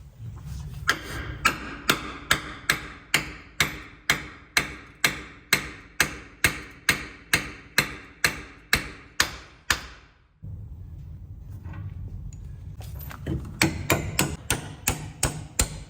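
Hammer blows struck about two a second for around nine seconds, then after a short break a quicker run of blows near the end, during work to replace a wheel hub bearing.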